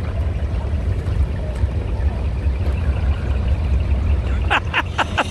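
Heavy truck engine rumbling as the truck rolls past at low speed, with a quick run of four or five short, sharp sounds near the end.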